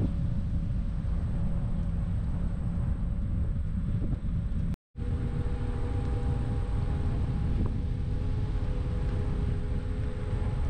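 Steady low rumble of vehicle and wind noise, with faint steady tones. The sound cuts out for an instant about five seconds in.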